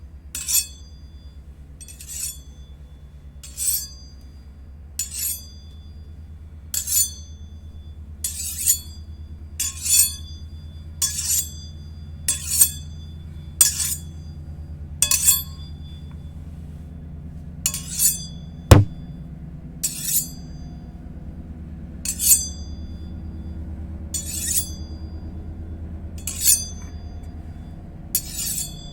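Steel blades tapped together in light clinks every second or two, often in pairs, each leaving a brief high ring. One sharper click comes about two-thirds of the way through.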